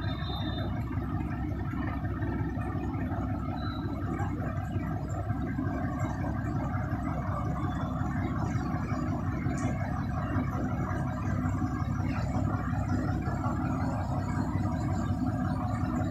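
Mobile crane's engine running steadily, with an even, low-pitched drone and no breaks.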